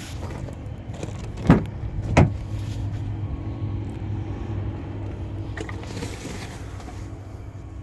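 Two loud thumps about two-thirds of a second apart, over a steady low hum, with a softer rustle around six seconds in.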